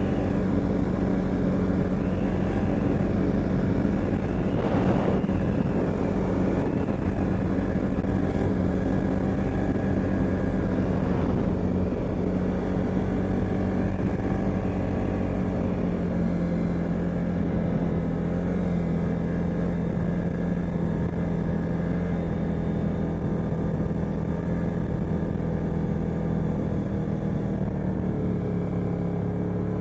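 CFMoto ATV engine running at a fairly steady speed, with its exhaust leaking. There is a short rush of noise about five seconds in, and the engine pitch dips slightly near the end.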